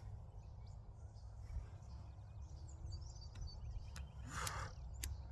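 Quiet outdoor morning ambience: faint birds chirping over a low steady rumble, with a few light clicks and a brief rustle a little past four seconds in.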